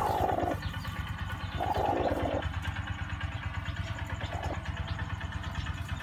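Broody hen sitting on eggs giving short raspy growls, three times, as she defends the nest against a hand reaching under her. A steady low mechanical throb, like a motor running, goes on underneath.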